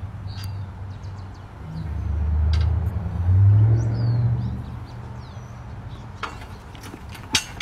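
Outdoor ambience with birds chirping. A low rumble swells over about two seconds and fades again, as from a passing vehicle. Near the end come a run of metal clinks and rattles, like swing chains.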